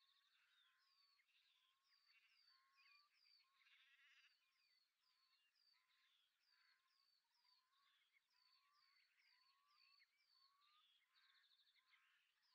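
Faint songbird chorus: several birds calling and singing at once, with a short, high, falling note repeated about twice a second, lower rising whistles, and buzzy trills.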